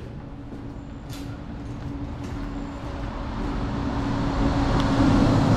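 Highway traffic: a road vehicle's engine and tyre noise, growing steadily louder as it approaches.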